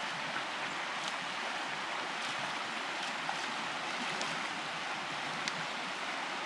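Shallow creek running over stones and small rapids, a steady rush of water with a few faint ticks.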